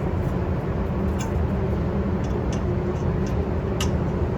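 Steady low rumble with a few light clicks scattered through it, likely small metal parts being handled.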